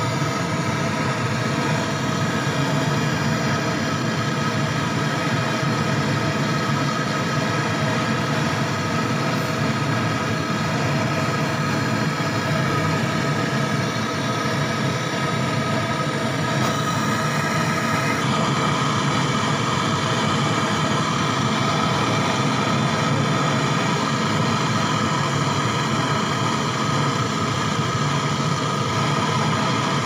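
Small gas brazing torch burning with a steady hiss while its flame heats a copper refrigerant line at a refrigerator compressor joint.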